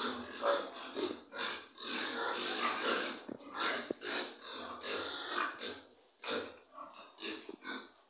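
Young piglets, about two and a half months old, grunting and squealing in a pen: a run of short, noisy calls from several animals, with a brief lull about six seconds in.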